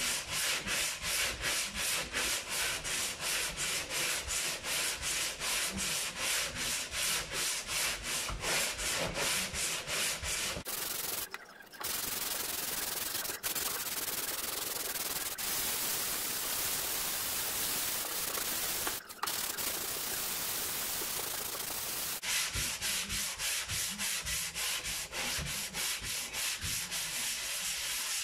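Hand sanding block with sandpaper rubbing down dried body filler on a classic Mini's steel door panel. Quick back-and-forth strokes about three or four a second, changing for about ten seconds in the middle to a steady unbroken rasp, then back to strokes near the end.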